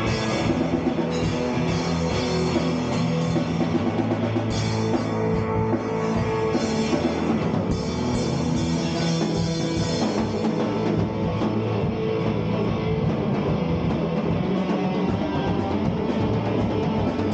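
Power-trio rock jam played live: electric guitar over a drum kit, holding steady throughout.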